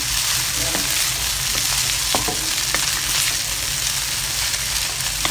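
Rice vermicelli, yellow noodles and egg sizzling in hot oil in a pan as a wooden spatula stirs and tosses them, with a few knocks of the spatula against the pan.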